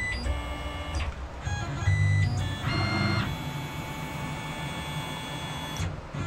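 Tormach 15L Slant-PRO CNC lathe's axis drive motors whining in steady tones as the machine moves, in three short moves of about a second each and then a longer one of about three seconds that stops near the end.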